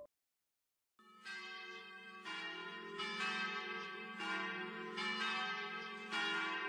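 Church bells ringing a peal, starting about a second in. Overlapping strikes come roughly once a second, each ringing on into the next.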